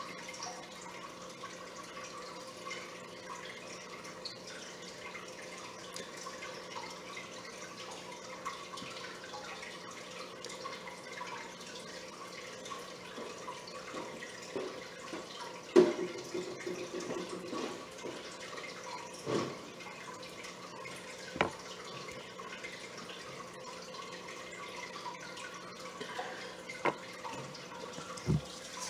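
Saltwater aquarium water trickling and dripping over a steady low hum, broken by a few faint knocks and one louder clunk about sixteen seconds in, followed by a brief rattle.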